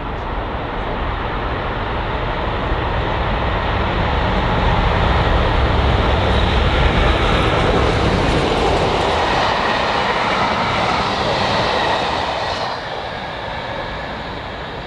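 Freight train hauled by two DC Rail Freight diesel locomotives passing through at speed: the engines' deep rumble builds as the locomotives approach and pass around the middle, then the wagons roll by and the noise fades near the end.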